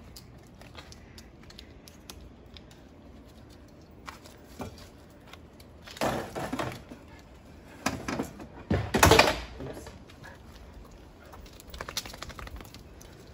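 Dry leaves crackling and crunching under feet and paws, with small clicks throughout and louder crunching bursts about six, eight and nine seconds in; the one at nine seconds is the loudest.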